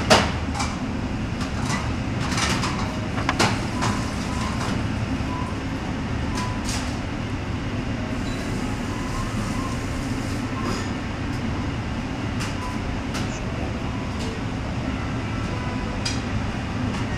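Canteen room noise: a steady low hum with scattered clicks and knocks of crockery, the sharpest knock right at the start.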